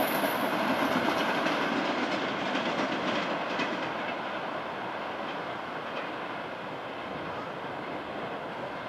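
Express passenger train running through the station at speed and drawing away: the rumble and clatter of its coach wheels on the rails fades steadily. A thin high whine dies out about two seconds in.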